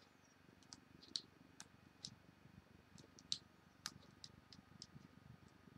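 Faint, irregular clicks, about a dozen, from the buttons of a vape mod being pressed to step its output down to 3.7 volts (32.6 watts).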